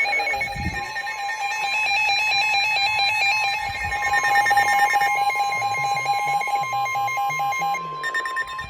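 Several NOAA weather radios alarming at once: the steady 1050 Hz weather-radio warning alert tone starts about a second in and holds, over the radios' own rapid pulsing alarm beeps. The alert tone signals that a warning message, here a severe thunderstorm warning, is about to be broadcast.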